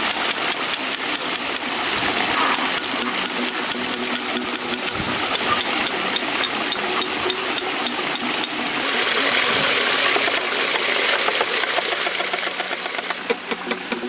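A concrete poker vibrator's small motor running steadily with a fast, even rattling knock as the poker works concrete in the wooden formwork. Near the end the strokes turn sharper and more distinct.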